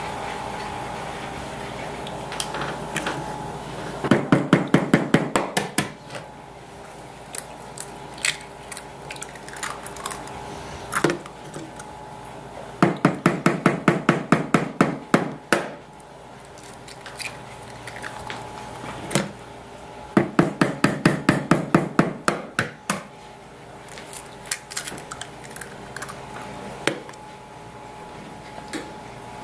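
Kitchen sounds as eggs are cracked into a ceramic mixing bowl: three bursts of rapid, even clicking, about six clicks a second and two to three seconds each, over a steady hum.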